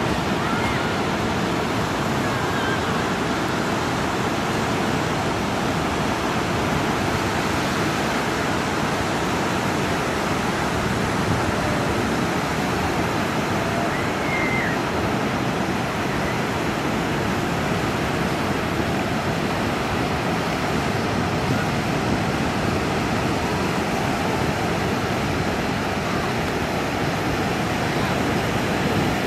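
Ocean surf breaking: a steady wash of waves and whitewater.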